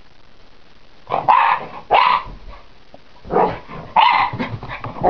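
Jack Russell terrier puppy barking excitedly in short bursts, starting about a second in and repeating several times.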